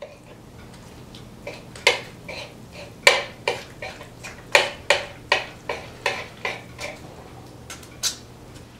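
Kitchen knife chopping through a wet, minced mass on a cutting board: a run of sharp knocks, about two or three a second, starting about two seconds in, with a short pause before the last two.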